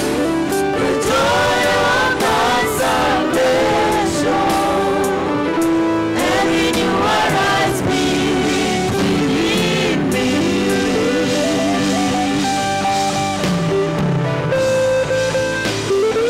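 A church praise team singing a gospel song together into microphones, with instrumental backing. A lead voice holds long notes with a wavering vibrato in the middle.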